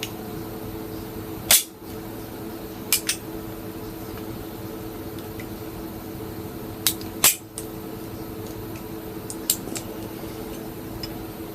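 Sharp metallic clicks and snaps, about six in all, as a snap ring is worked onto a Craftsman ratchet's head. The loudest snap comes about a second and a half in, with pairs near three and seven seconds, all over a steady low hum.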